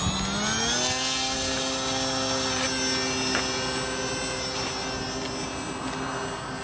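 Small fixed-wing UAV's propeller motor at full throttle for a hand launch. Its pitch rises through the first second as it spins up, then holds steady and grows fainter as the plane climbs away.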